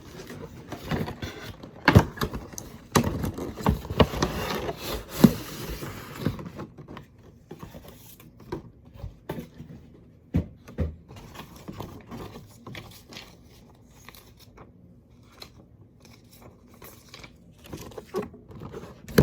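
A cardboard product box being opened and its contents handled: scraping and sharp knocks and taps, busiest in the first six seconds, then sparser handling noises.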